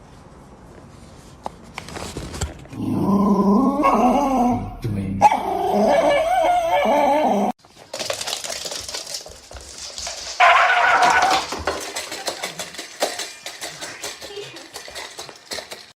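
A dog vocalizing in long, wavering, pitched calls for several seconds, cut off abruptly. A shorter, higher call follows a few seconds later.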